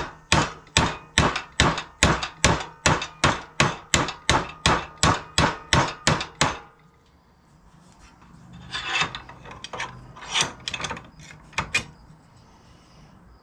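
A hammer tapping a bent 16-gauge steel bracket clamped in a bench vise, about three even blows a second for some six seconds, sharpening a rounded bend to gain a little length. A few seconds of softer scraping and clinking of the metal follow.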